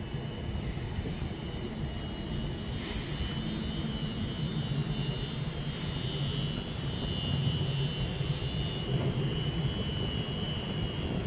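A train running at the station: a steady low rumble under a constant high whine, slowly growing louder.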